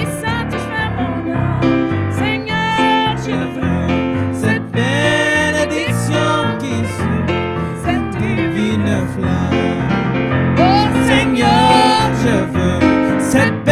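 Gospel song played on a keyboard, with a woman singing over the accompaniment in a wavering, held voice.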